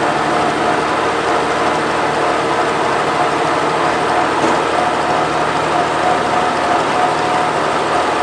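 Oliver 430 combine with a 93 hp engine, running steadily while harvesting wheat, along with the mechanical whir of its harvesting machinery.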